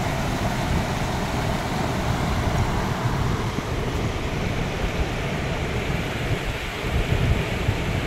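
Steady rushing of a swollen river pouring over rock ledges and rapids at the top of a waterfall, with a low fluttering rumble of wind on the microphone.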